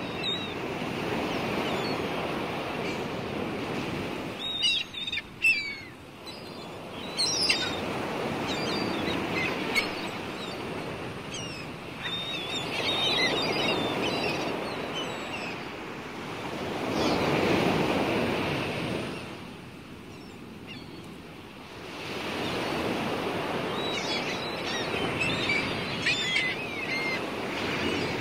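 Outdoor ambience: a rushing, surf- or wind-like noise that swells and fades every few seconds. Small birds chirp now and then, in a cluster a few seconds in and again near the end.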